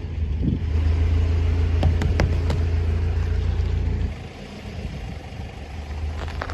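Car engine running with a steady low hum that cuts off about four seconds in, with a few sharp snaps over it about two seconds in.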